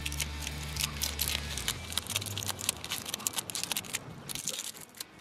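Crinkling, crackling handling noises of a sticky rubber tire-plug strip being handled and threaded through the eye of a plug-kit insertion needle, over a steady low hum that stops about two seconds in.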